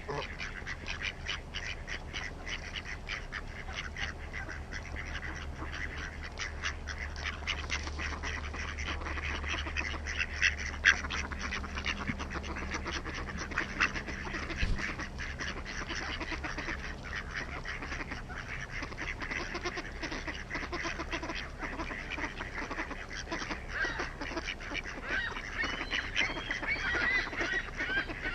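A flock of wild geese and ducks calling all at once: honking and quacking in many overlapping calls, with no let-up.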